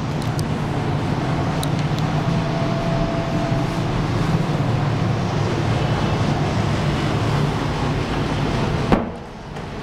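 Steady low mechanical hum with a rushing noise. About nine seconds in a wooden door clicks shut, and the hum drops sharply.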